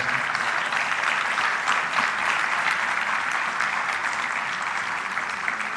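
Seated audience applauding steadily, the clapping easing off slightly toward the end.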